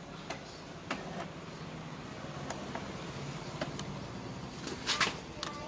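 Epson L3110 inkjet printer's mechanism running with a faint, steady low whir and a few light clicks as it starts a black copy, then a couple of sharp knocks near the end.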